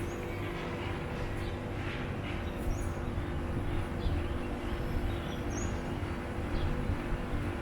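Steady low ambient hum with a few short, high chirps.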